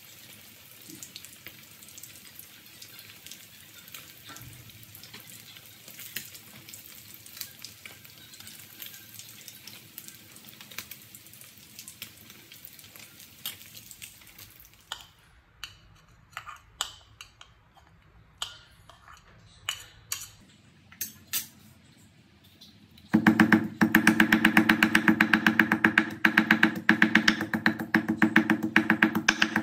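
Fish pieces frying in hot oil in a wok, a steady sizzle with fine crackling, for about the first half. Scattered light taps follow. About six seconds from the end, loud background music with a quick beat comes in and covers everything.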